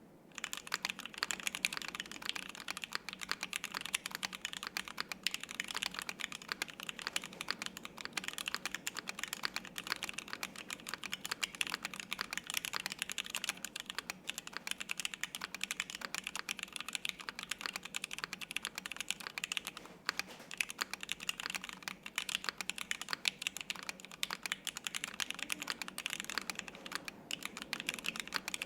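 Continuous fast typing on a Rama Thermal 60% mechanical keyboard: lubed Zealios V2 tactile switches on a polished aluminium plate with no plate or case foam, under GMK double-shot ABS keycaps, giving a dense run of crisp keystroke clicks and clacks. The typing starts about half a second in and keeps up without a break.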